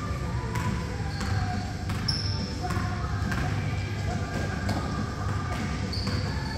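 A basketball bouncing irregularly on a gym floor as players run a game, with short high squeaks of shoes on the court and a steady low hum under it, all echoing in a large hall.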